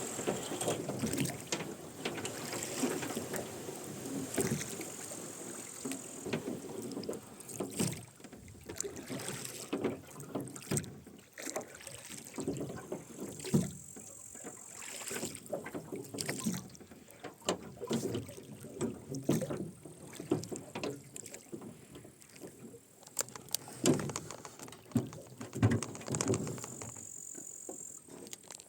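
Rowing boat under way: oars dipping and splashing in the river, with the oarlocks creaking and knocking at each stroke.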